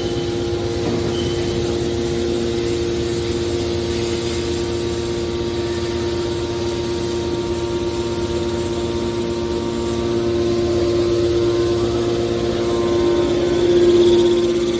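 Hydraulic car baler's power unit running with a steady hum, getting louder about ten seconds in and peaking near the end.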